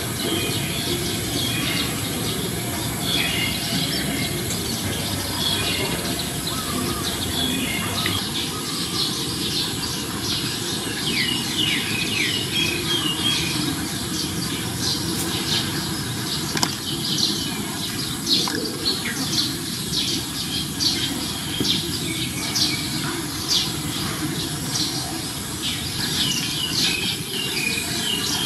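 Small birds chirping rapidly and repeatedly, in quick short notes, over a steady rushing background noise.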